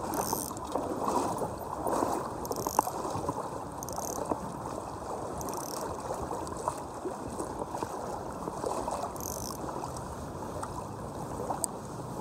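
River water running over a shallow gravel bed: a steady rush, with a light splash every few seconds close by.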